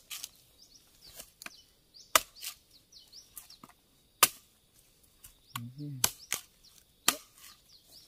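Machete chopping into the husk of a young green coconut: about eight sharp blows at irregular intervals, the loudest about two and four seconds in.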